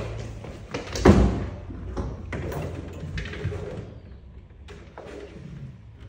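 Thumps and knocks of a refrigerator door and of a person moving inside the empty fridge cabinet, with one loud thump about a second in and lighter knocks after it.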